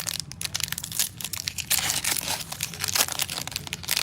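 Crinkly plastic trading-card pack wrapper being handled and torn open, a dense rustling crackle throughout.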